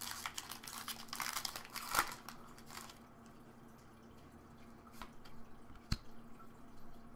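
Foil wrapper of a Pokémon trading-card booster pack crinkling as it is handled and opened, with a sharp snap about two seconds in. The crinkling stops about three seconds in, and after it come a couple of light clicks of the cards being handled.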